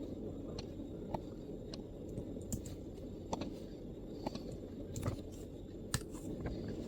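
MacBook laptop keyboard keystrokes: slow, irregular typing, about a dozen separate soft key clicks, over a steady low background rumble.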